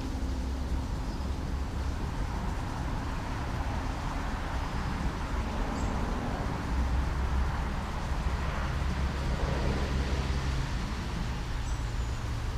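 Steady low outdoor rumble, like distant traffic, with a couple of faint high chirps.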